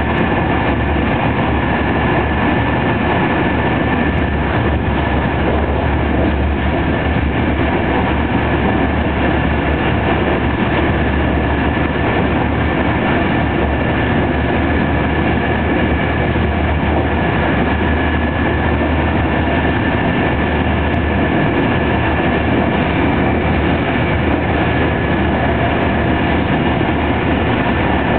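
Passenger train running at speed, heard from inside a carriage: a steady rumble of wheels on rails with a thin, steady high-pitched whine over it.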